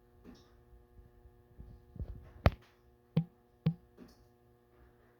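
Aluminium-sounding ladder being handled or stepped on, giving a few knocks and clunks: a sharp clack about halfway through, then two solid knocks half a second apart and a lighter one after, over a faint steady hum.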